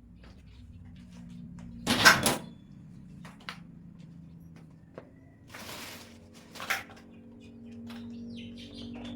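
Shoe-rack parts being handled and fitted together: scattered knocks and clacks, the loudest about two seconds in, with a short scrape shortly before another knock near the end.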